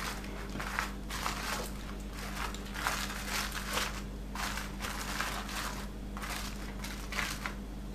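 Aluminium foil crinkling and crackling as hands press and crimp it down over a baking dish, in many short, irregular bursts.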